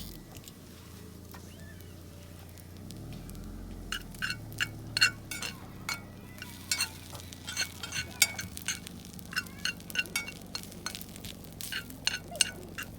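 Irregular clinks and taps of utensils against metal cookware and dishes, starting about four seconds in and going on in quick scattered strokes, over a low steady hum.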